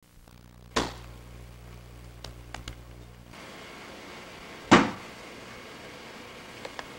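Two sharp knocks, one about a second in and a louder one near five seconds in, with a few lighter clicks between and after, over tape hiss. A low hum runs through the first three seconds, then stops.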